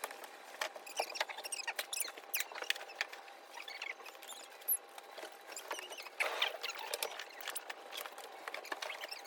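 Campfire crackling: irregular sharp pops and clicks, with short high squeaks among them.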